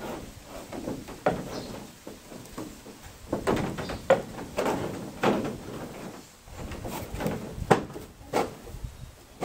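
Wooden gunwale strip being handled and fitted by hand against a fiberglass canoe hull: irregular knocks, taps and rubbing, with the sharpest knock about three-quarters of the way through.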